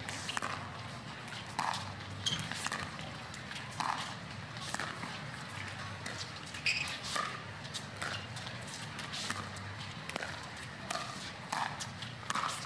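Pickleball rally: paddles popping the hard plastic ball back and forth, a hit roughly every second, with the players' shoes scuffing on the court between hits.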